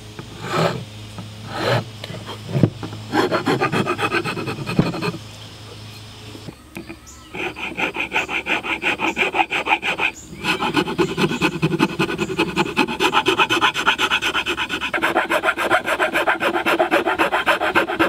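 Round file rasping across wood, cutting traction grooves into a wooden hammer handle. A few separate strokes at first, then after a short pause a long run of quick, steady back-and-forth strokes.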